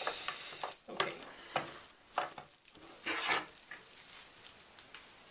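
Crinkling and rustling of plastic packaging being handled, in several short bursts during the first three and a half seconds, then quieter.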